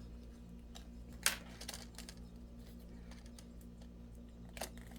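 A few small plastic clicks and ticks as a pry tool works a laptop screen's retaining clips loose. The loudest comes about a second in and another near the end, over a low steady hum.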